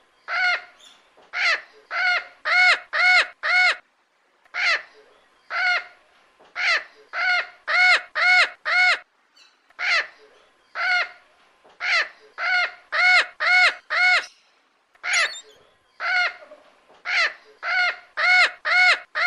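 Rainbow lorikeet calling: short, harsh squawks repeated in quick runs of several calls at a time, with brief pauses between runs.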